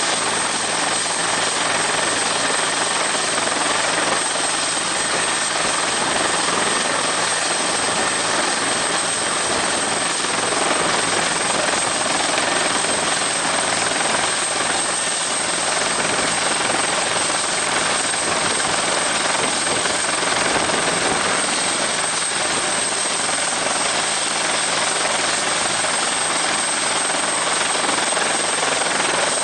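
Helicopter running steadily, an even rushing noise with a thin high whine held throughout.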